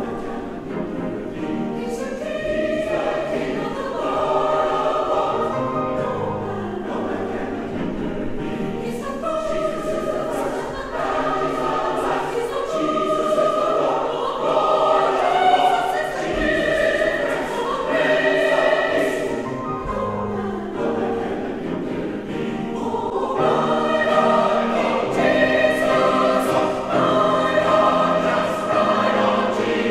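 Large mixed church choir singing an anthem, growing louder about halfway through.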